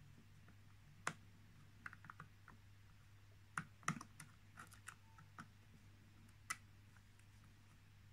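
Small screwdriver clicking and scraping against a small screw and a thin metal cover plate: scattered light metallic clicks, the loudest about a second in and a cluster around four seconds in. A faint steady low hum runs underneath.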